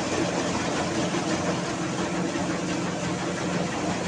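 Mini rice mill running steadily while milling paddy: a constant hum with an even noisy rush over it.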